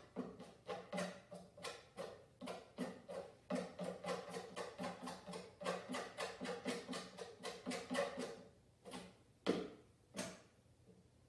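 Paintbrush dabbing and scrubbing oil paint onto a stretched canvas in quick short strokes, several a second, each with a dull hollow knock from the canvas; near the end the strokes slow to a few separate dabs.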